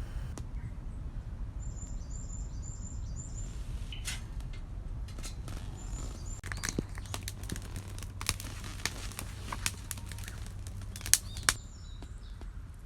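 A small bird chirping in a quick series of short, high notes, with a steady low rumble of wind on the microphone underneath. Scattered sharp clicks and taps follow, the two loudest near the end.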